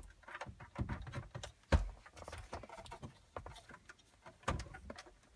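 Irregular clicks and knocks of plastic wiring connectors being unplugged from the back of a factory GM car radio and the radio unit being handled. There is one sharp click a little under two seconds in and another about a second before the end.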